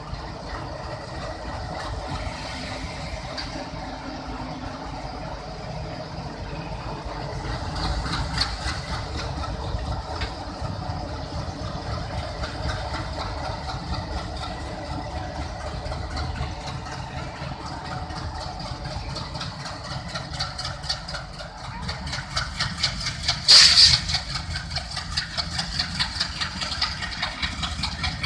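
Twin ALCO WDG3A diesel locomotives, their 16-cylinder ALCO 251 engines running steadily. A brief, very loud burst comes late on, after which the engine sound pulses more quickly.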